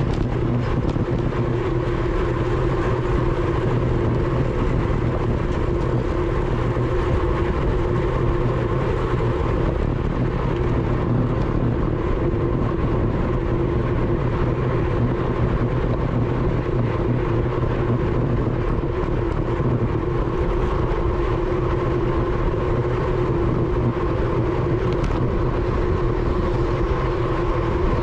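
Wind rushing over a bicycle-mounted GoPro at racing speed, mixed with tyre and drivetrain noise: a steady rush with a constant hum underneath.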